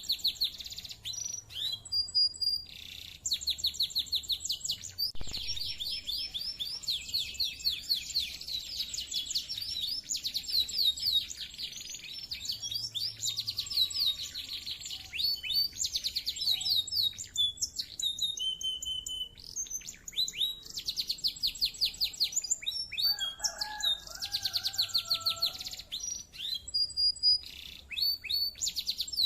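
Domestic canary singing at length in fast, rolling trills and chattering phrases, with short breaks between phrases. About three-quarters of the way through, a lower warbling phrase sounds for a couple of seconds.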